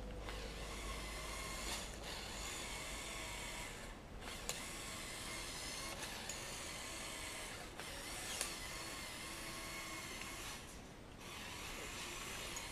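Lego Technic Unimog's electric motors and plastic gearing whirring as it drives, easing off briefly twice, with a few sharp clicks.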